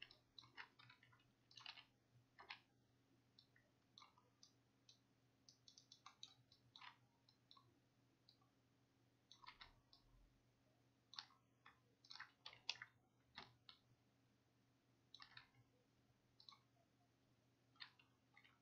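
Faint computer mouse clicks, irregular and often in quick clusters, over a low steady electrical hum.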